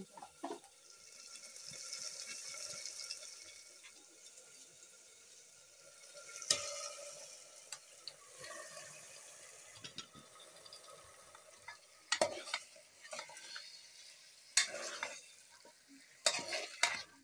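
A sizzling hiss for the first few seconds, then a metal ladle stirring beef in an aluminium pressure cooker, with sharp knocks and scrapes of the ladle against the pot, several coming in the last few seconds.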